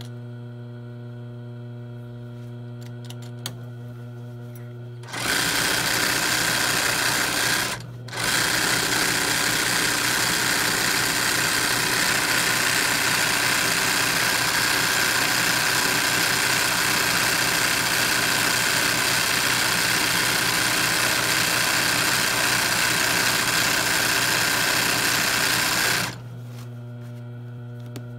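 Royal industrial sewing machine stitching free-motion embroidery. A steady hum at first, then the stitching starts about five seconds in, breaks off briefly a few seconds later, runs steadily, and stops about two seconds before the end, leaving the hum.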